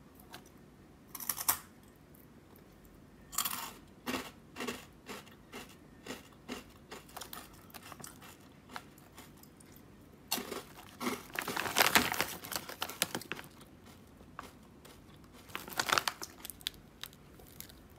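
Crunchy gyu-nabe flavoured snack pieces being bitten and chewed, in a run of irregular crackles, together with the plastic snack bag crinkling; the loudest crinkling comes about two-thirds of the way through, with another short burst near the end.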